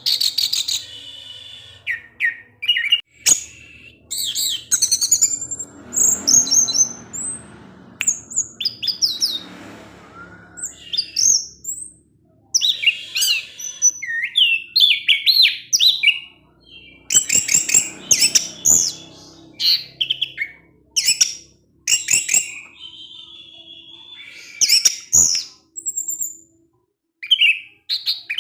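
Orange-headed thrush singing in repeated bursts of quick, high chirps and twittering phrases with short pauses between them: the chirpy 'ngecip ngecis' song style that keepers play as a lure to get other birds singing.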